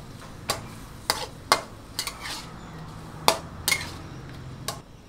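Metal wok spatula clanking and scraping against a steel wok while stir-frying beef, about eight sharp strikes at an uneven pace that stop shortly before the end.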